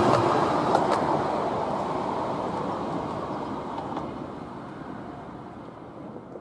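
Battery-electric miniature locomotive and a single carriage running away along the track: the rolling wheel noise fades steadily, with a couple of sharp clicks about a second in.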